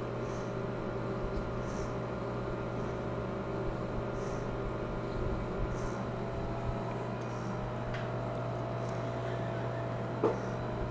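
A steady low mechanical hum, with a single sharp knock near the end.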